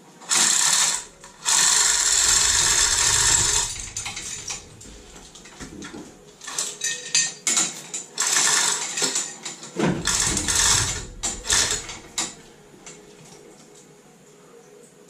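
Metal tools working in short bursts with a mechanical ratcheting clatter: a longer run early on, then a stretch of rapid on-and-off bursts.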